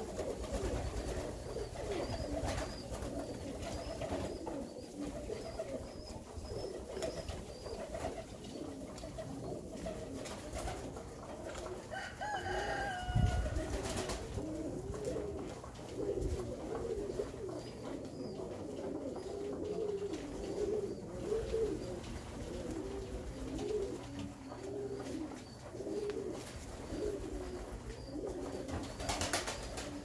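Alföldi-Körösi tumbler pigeons cooing, many low coos overlapping. About twelve seconds in, a brief higher-pitched call sounds over the cooing, followed by a single low thump.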